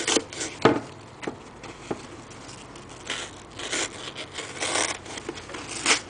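Razor blade cutting into headrest foam and foam being pulled back: a few sharp clicks in the first two seconds, then several short scraping, tearing rasps.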